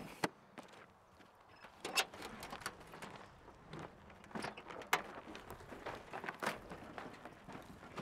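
Faint, scattered footsteps on dry, stony soil, mixed with light knocks and rattles from a garden cart being moved along.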